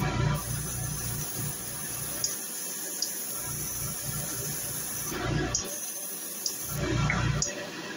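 Airbrush spraying onto a plastic model car body: a steady airy hiss that stops briefly twice as the trigger is let off.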